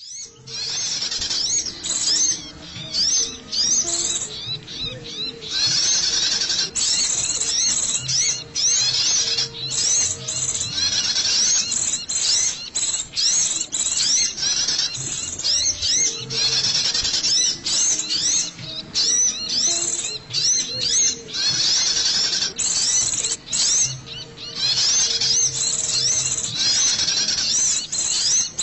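Little spiderhunter (sogok ontong) calling: rapid runs of high, arched chirping notes in bursts of a few seconds with short breaks, played as a lure call for catching the bird.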